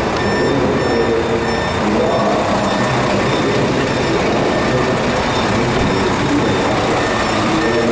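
Scania P 410 fire truck running steadily, with a faint high electronic beep repeating about once a second during the first few seconds.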